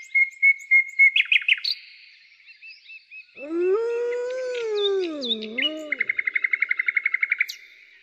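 Songbirds chirping, with a fast trill near the end, and in the middle a single wolf howl of about two and a half seconds that rises, levels off, then falls with a short dip and lift at its close.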